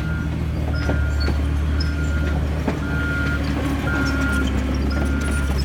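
Backup alarm of a diesel earthmoving machine beeping about once a second while it reverses, over the steady low rumble of its engine, with a few light metallic clanks.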